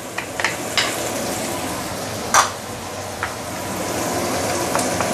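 Oil sizzling in a stainless steel wok as chopped garlic is dropped into it, with several light metallic clinks against the pan; the loudest clink comes about two and a half seconds in.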